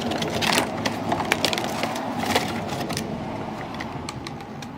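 A retail box and its packaging being opened and handled: a run of clicks, crinkles and knocks, thinning out after about three seconds, over steady street traffic noise.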